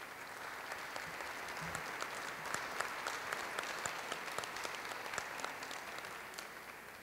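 Audience applauding: a dense patter of many hands clapping that tapers off near the end.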